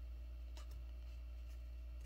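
Letter-size paper being pinched and creased by hand while folding a paper airplane, with one faint brief rustle about two-thirds of a second in. A steady low hum runs underneath.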